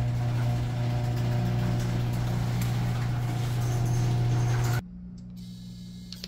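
LiftMaster/Chamberlain ceiling-mounted garage door opener running, a steady low motor hum as it drives the door after the wall button is pressed. The hum cuts off abruptly about five seconds in.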